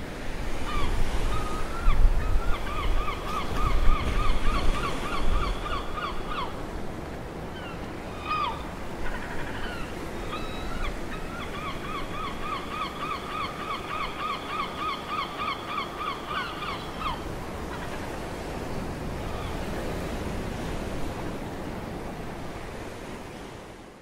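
Sea surf washing over rocks, heavier in the first few seconds, with a bird calling in two long runs of quick repeated notes, about three or four a second. The sound fades out at the end.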